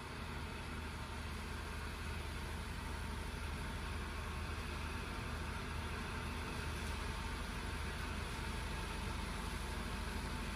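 Engine of a paddy thresher running steadily with a low, even hum.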